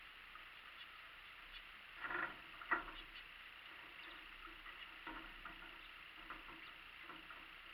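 Small aviary birds, canaries and zebra finches, splashing and fluttering in a shallow water bath: a short flurry of splashing about two seconds in, a sharp tap just after, then scattered faint pattering.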